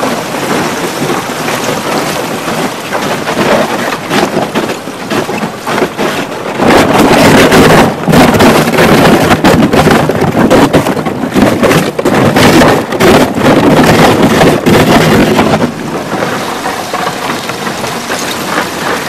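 G3 aluminum boat hull breaking through thin lake ice: continuous crackling and crunching of ice sheets shattering against the metal hull, with splashing water. It gets much louder from about six and a half seconds in until about fifteen seconds, then drops back.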